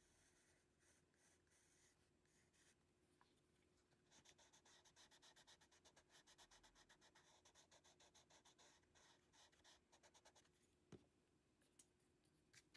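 Faint pencil on paper: light strokes at first, then from about four seconds in a quick run of taps as dots are stippled onto the drawing, stopping about ten seconds in, followed by a few isolated clicks.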